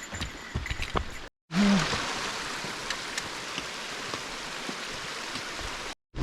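Steady rushing of a mountain stream. A few footstep crunches on the trail come just before an abrupt cut about a second in.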